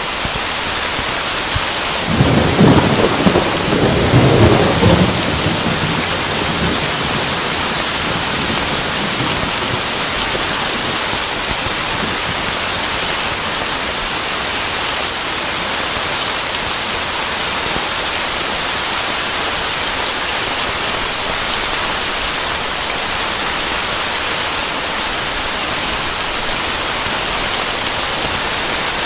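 Steady heavy rain with a thunderclap about two seconds in that rumbles for a few seconds and then fades, leaving the rain alone.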